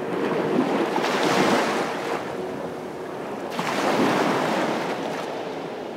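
Sea waves washing onto a beach, the surf swelling about a second in and again after a sudden drop in the middle.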